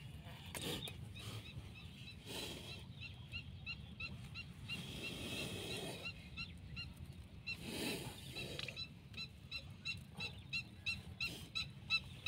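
Rustling and scraping as a wire-mesh snake trap is worked into a nylon net bag, in a few short bursts. From about halfway, an animal calls in a fast run of short, high chirps, about three a second, growing louder near the end.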